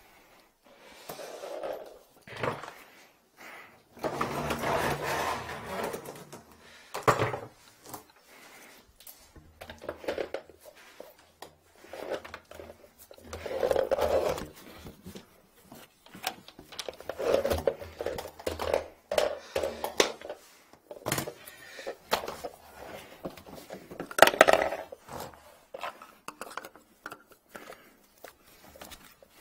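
Irregular knocks, scrapes and rustling as drain-cleaning gear and hoses are handled on a floor, with a few louder bangs. No steady machine is running.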